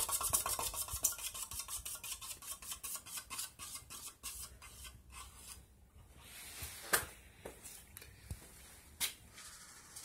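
Harbor Breeze Orcacoke 42-inch ceiling fan slowing down, with a rhythmic tick once per turn that slows from about eight a second to about two and fades out. A few separate sharp clicks follow near the end.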